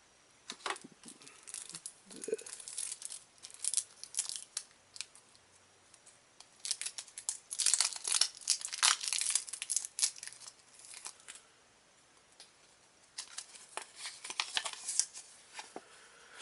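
Clear plastic packaging and paper crinkling and tearing as a sleeve holding a folded instruction leaflet is opened and the leaflet is pulled out and unfolded. Irregular rustles, loudest in a dense run in the middle and again near the end.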